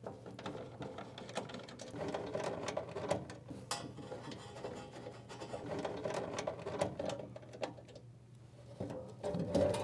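Screwdriver backing out the mounting screws of an old motor protection relay: an irregular run of small mechanical clicks and turning noises, a little louder near the end.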